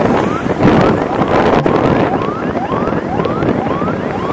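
Vehicle siren yelping: a short rising wail repeated about twice a second, over loud road and wind noise from a moving vehicle.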